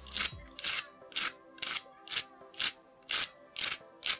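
Fork tines scraping across the fried crust of an aloo tikki (potato patty), a dry scratchy rasp repeated about twice a second; the sound shows the crust is fried crisp.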